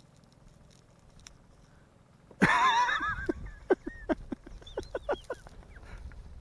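Birds calling: a sudden loud burst of wavering calls about two and a half seconds in, followed by a run of short sharp calls and squeals.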